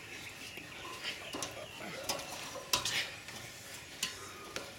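Irregular knocks and clatter of hands and bare feet striking and gripping the steel bars of a metal-frame jungle gym as people climb and grapple on it, the loudest knock just under three seconds in.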